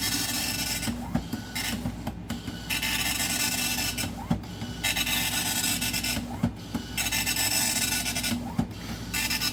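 Radio Shack DMP-110 dot-matrix printer printing a document in draft quality: the print head buzzes across the page line by line, with a short pause between lines about every two seconds.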